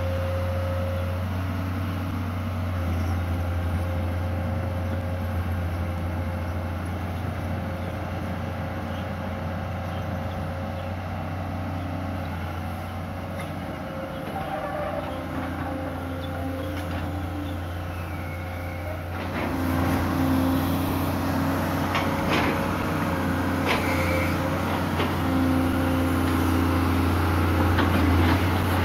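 Hitachi UH045 excavator's diesel engine running with a steady low hum and a few steady tones above it. About two-thirds of the way through it grows louder and several sharp cracks or knocks come through.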